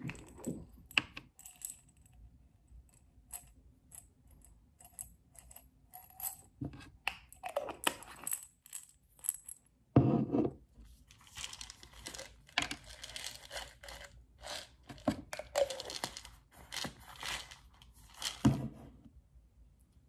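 Plastic vitamin pill bottles being handled: caps twisted and clicked, pills rattling inside, and a bottle set down on the tabletop with a thud about halfway through and again near the end.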